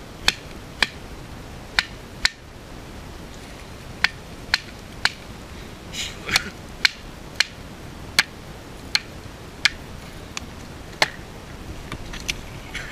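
Brusletto Anàrjohka large knife chopping into a birch log: about fifteen sharp chops of the blade biting the wood, roughly one every half second to a second.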